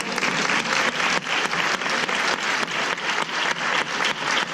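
Audience applauding steadily, individual claps standing out in a dense patter.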